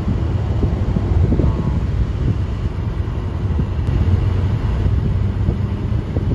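Inside a car at highway speed: a steady low rumble of road and engine noise.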